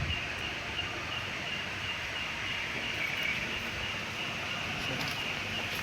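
Night insects chirping in a steady, evenly repeating pulse several times a second, over a low rustling background hiss.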